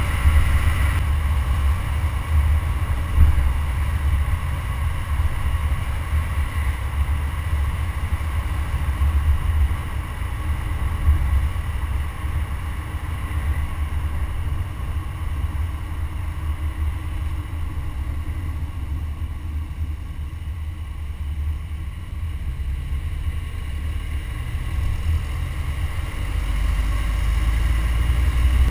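Wind buffeting the microphone of a GoPro mounted on the front grille of a moving car, a steady low rumble mixed with road noise, swelling slightly near the end.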